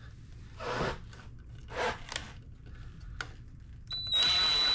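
A few short scraping and rubbing noises of handling, then about four seconds in a power drill starts and runs steadily with a high whine, driving a screw in.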